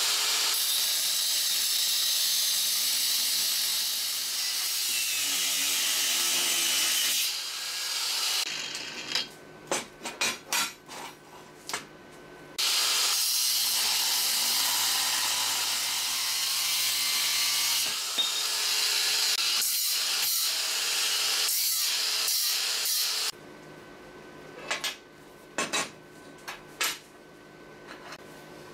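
Angle grinder cutting through steel angle iron: a steady high-pitched grinding whine for about seven seconds, then again from about halfway for ten more seconds, dipping briefly once. In between and near the end, sharp clinks and knocks as the steel is handled.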